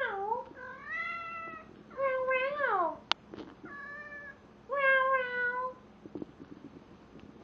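Male domestic cat yowling in long, drawn-out calls while mounting a stuffed toy: sexual mating behaviour. About five calls, the third sliding down in pitch at its end, with a single sharp click just after it.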